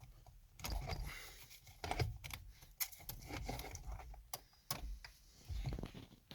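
Irregular clicks, rattles and rubbing of plastic and metal parts as the driver's airbag module is worked loose and pulled out of the steering wheel.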